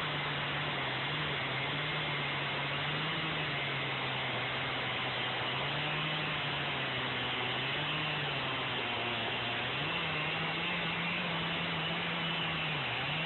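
Two-stroke gas chainsaw running at full throttle as it cuts through a large log, its engine note steady with a couple of brief dips in pitch as the chain loads down in the wood.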